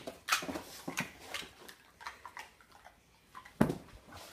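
A ridgeback-cross dog making short, excited sounds in play, in quick bursts, with a loud thump about three and a half seconds in.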